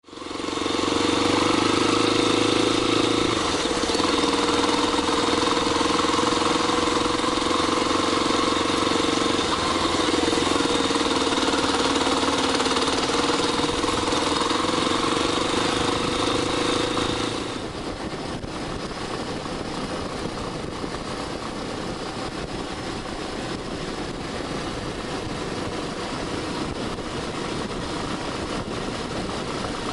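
Yamaha Tricker XG250's single-cylinder four-stroke engine running steadily for about 17 seconds, then dropping suddenly to a quieter, uneven, pulsing run.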